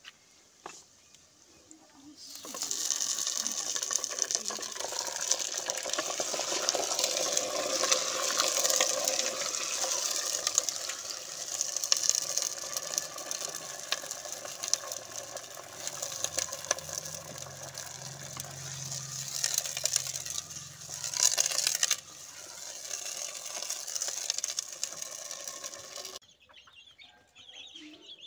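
Chicken pieces frying in hot oil and browned onions in an earthenware pot, with a steady crackling sizzle that starts about two seconds in. Near the end it cuts off abruptly, leaving faint calls of a hen and chicks.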